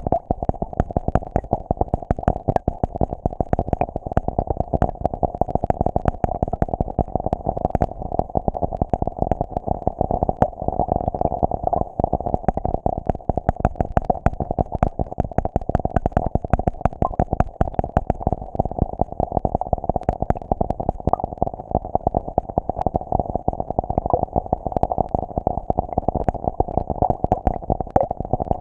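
Muffled sound heard from underwater in a shallow plastic pool: a steady mid-pitched hum with dense, irregular ticking throughout, rain pattering on the water surface above.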